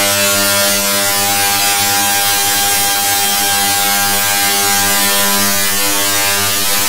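Loud, steady, distorted electronic buzzing drone made of many stacked tones over a harsh hiss.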